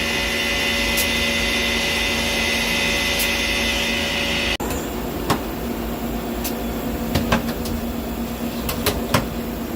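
Miyano BNX-51MSY CNC lathe running a dry run with no cutting: a steady machine whine that cuts off suddenly about halfway, then a lower hum with a series of sharp clicks and knocks.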